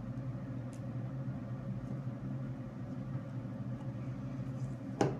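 Steady low electrical hum with a few faint clicks. One sharp click near the end comes from handling a boxed Super Floppy Cube puzzle.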